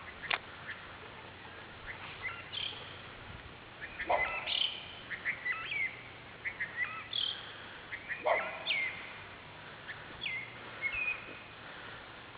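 Wild birds chirping: a string of short, high chirps and whistles, with louder sharp notes about every four seconds.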